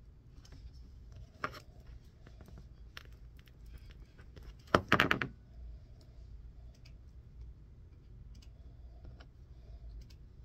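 Small clicks and rustles of fingers handling the wires of a shielded Cat 6 cable, with a louder, brief rattle about five seconds in.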